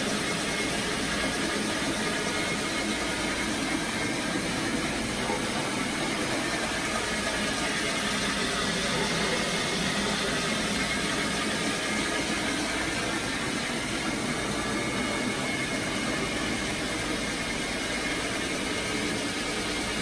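Rotary carpet-extraction tool running steadily on the carpet, its spinning head and the vacuum suction through its hoses making a constant mechanical hiss and hum.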